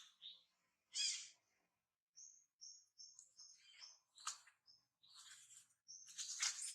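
High-pitched animal calls: a quick run of short chirps, broken by a few louder, scratchier squeals about a second in, past the middle and near the end.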